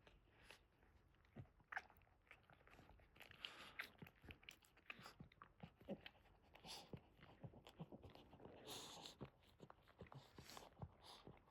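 Faint, irregular wet smacking and soft rustling from a Boston terrier mother and her newborn puppies nursing in the nest.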